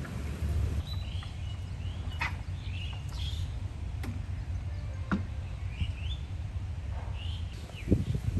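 Birds chirping on and off over a steady low outdoor rumble, with a few sharp light knocks and a couple of low thuds near the end.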